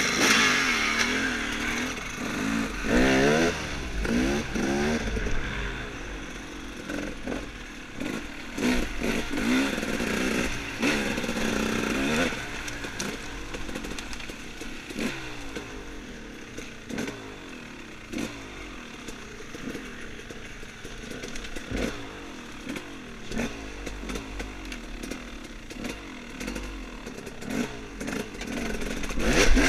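Off-road dirt bike engine riding a trail, its pitch rising and falling over and over as it revs through the gears. Scattered knocks and rattles come from the bike working over rough ground. It is louder over the first dozen seconds, quieter through the middle and louder again near the end.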